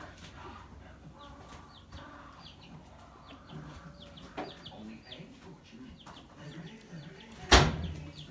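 Chickens calling, a run of short high chirps repeating throughout, with a single loud thump near the end.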